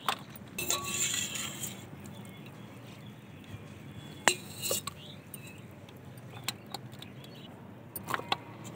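Wire mesh skimmer clinking against a steel pot and a steel tray as par-boiled potato fingers are scooped out and tipped onto the tray. The clinks and light knocks come singly, with a sharper one about four seconds in and a few close together near the end.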